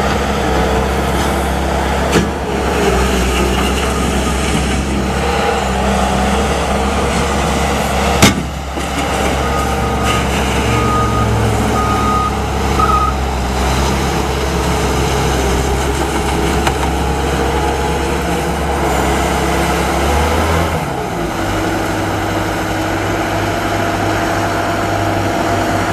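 A 2007 Bobcat T250 compact track loader's diesel engine running steadily as the machine moves on its rubber tracks, with one sharp clank about eight seconds in and a few short beeps soon after. About twenty seconds in the engine speed drops and it keeps running at the lower speed.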